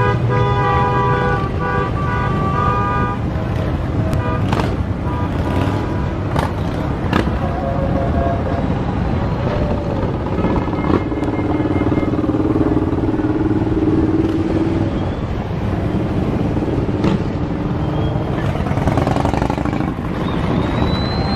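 Many motorcycles riding in a mass rally, engines running loudly. Horns honk together in the first few seconds, and a long lower horn tone sounds in the middle.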